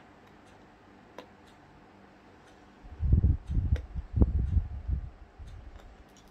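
A few faint small clicks, then about two and a half seconds of loud, low rumbling knocks and rubbing from close handling, about three seconds in.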